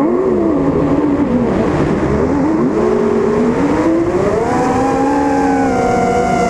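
FPV racing quadcopter's brushless motors and propellers whining, the pitch wavering with throttle and then rising steadily a few seconds in before holding high.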